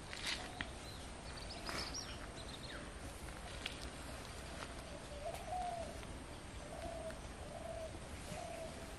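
Faint bird calls: a string of short, low repeated notes through the latter half, with a few high chirps about two seconds in.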